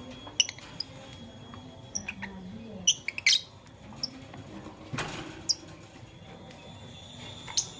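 Lovebirds giving short, sharp chirps, seven or so scattered through, the loudest a quick pair about three seconds in.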